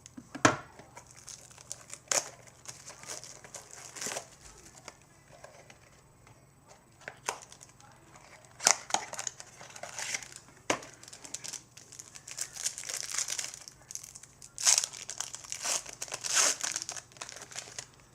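A baseball card pack's wrapper being torn open and crumpled by hand, with irregular sharp crackles and rustling bursts that are busiest near the end.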